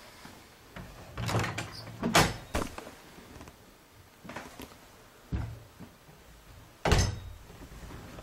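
A handful of separate dull thumps and knocks at irregular intervals, the loudest a couple of seconds in and again near the end.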